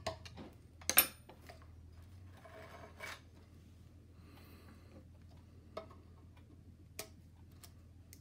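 Hand tools and metal parts clinking and knocking against the air compressor's pulley and frame while a drive belt is worked on, with a brief scraping rub. The sharpest clink comes about a second in, followed by a few lighter taps.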